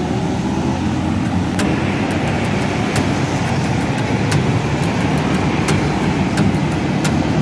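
Street traffic heard from a moving bicycle among motorbikes: a steady, dense rumble with scattered sharp clicks.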